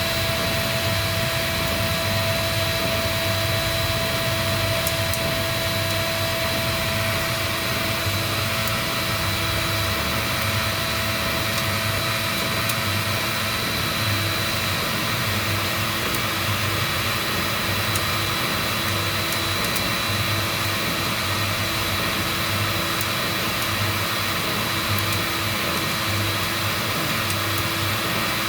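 Heat gun blowing hot air steadily, its fan a constant noisy rush with a steady whine, with a few faint ticks scattered through it.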